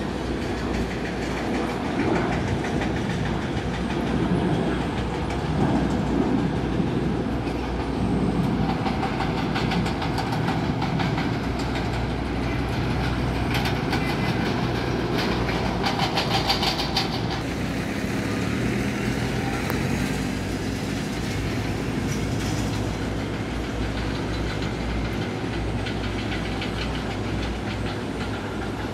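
Boeing 737-800's CFM56-7B turbofan engines at climb power just after takeoff: a steady jet rumble as the airliner climbs away.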